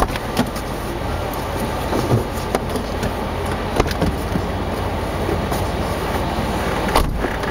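Jeep Wrangler JK Unlimited's engine running with the vehicle nearly stopped: a steady low rumble with scattered sharp clicks and knocks, the clearest about two seconds in, near four seconds and just before the end.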